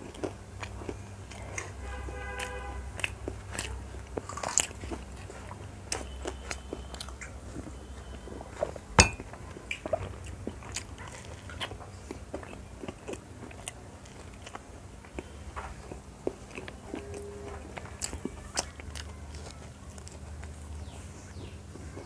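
Close-up eating sounds of a person biting and chewing street food, with many small irregular crunches and mouth clicks. One sharp click about nine seconds in is the loudest sound.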